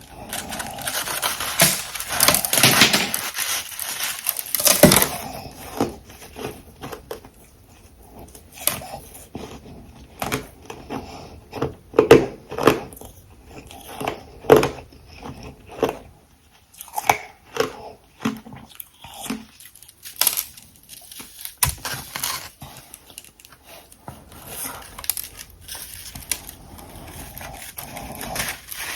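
Close-up crunching of dense refrozen humidifier frost and crushed ice chunks being bitten and chewed. A dense crackling chew comes first, then a run of separate crisp crunches, some sharp and loud, with short pauses between.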